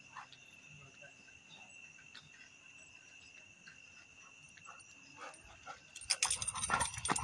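Faint steady chirring of crickets with a few scattered ticks. About six seconds in, loud rapid clattering and knocking starts: the running footfalls of a dog and walker and the rattle of a metal chain lead.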